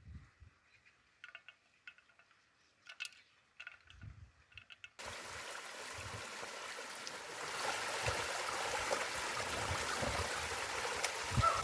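A few faint light clinks, then a steady rush of running water that starts abruptly about five seconds in and grows a little louder.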